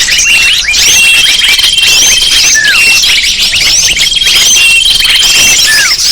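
Loud, dense chorus of many small birds chirping and twittering at once, rapid high overlapping calls with a few briefly held whistles: a bird-lure recording (suara pikat) played to draw in birds.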